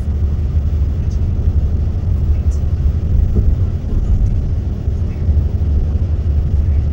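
Steady low rumble of a vehicle travelling along a highway: road, engine and wind noise heard from the moving vehicle.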